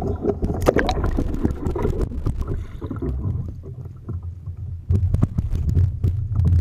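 Water splashing and sloshing against a kayak, over a low rumble of water and wind on the action-camera microphone, with sharper splashes about half a second in and again from about five seconds on.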